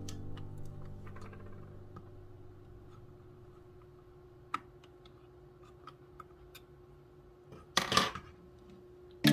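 Background music dying away, followed by a quiet stretch of scattered small sharp clicks and ticks. A brief louder rustling burst comes about eight seconds in.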